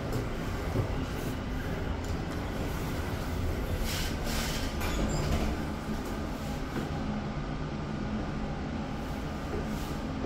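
Newark AirTrain monorail car running along its guideway, heard from inside the car: a steady rumble with a brief hissing rattle about four seconds in.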